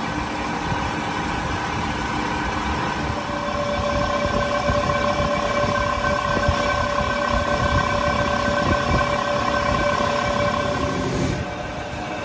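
A belt-driven grinding wheel on a lathe grinding the friction face of a spinning truck flywheel: a steady grinding hiss over several steady whining tones from the lathe and grinder. The high hiss drops away about eleven seconds in.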